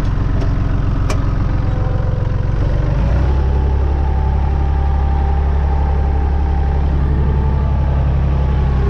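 Massey Ferguson 135's three-cylinder diesel engine running steadily as the tractor is driven. About three seconds in, its note changes and then holds.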